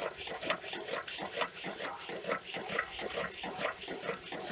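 Homemade alpha-type Stirling engine generator running steadily, its pistons and flywheel making an even, rhythmic beat of several strokes a second.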